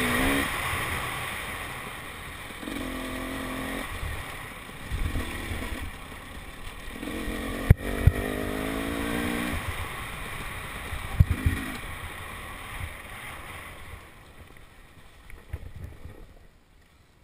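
KTM 300 XC-W two-stroke dirt bike engine revving in short bursts with throttle-off gaps between them, over wind rushing on the helmet-camera microphone. A few sharp knocks come from the bike over bumps about 8 and 11 seconds in, and everything dies down near the end as the bike slows.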